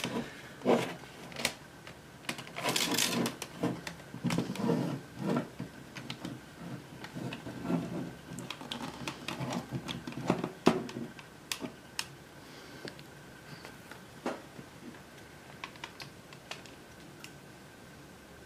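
Irregular clicks, creaks and scrapes of a Panasonic SL-CT810 portable CD player's casing being pried and flexed by hand to free it, thinning out to occasional clicks after about eleven seconds.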